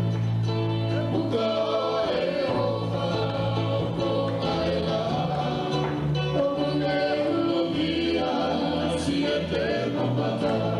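Tongan song sung by a group of voices over live instrumental accompaniment, with sustained bass notes that change every second or two.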